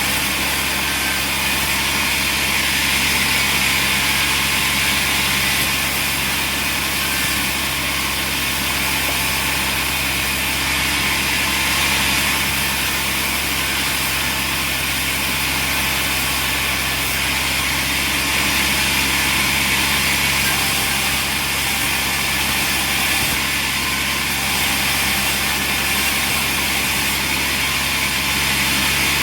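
Machinery running steadily: a constant engine-like drone with a hiss, without breaks, cuts or impacts.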